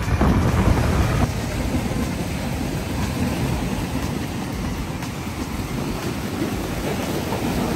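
Steady rumble of riding on a motorcycle, with wind buffeting the microphone and the engine and road noise beneath it.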